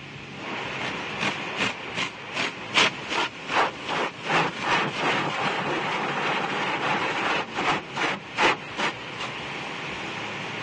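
Automatic car wash working on a truck: a steady hiss of water spray with the wash brushes slapping rhythmically against the body, about two or three slaps a second, in two runs with a pause between.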